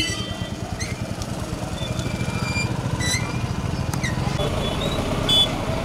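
A vehicle engine idling with a regular low pulse, along with short high chirps and voices in the background.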